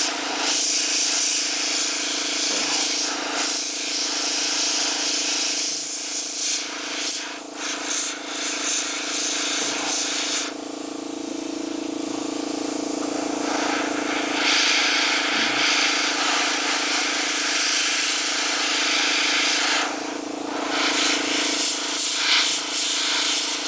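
Iwata Eclipse airbrush hissing as it sprays paint onto a resin bust, in long spells that stop for a few seconds about halfway through and briefly near the end. A steady low hum runs underneath.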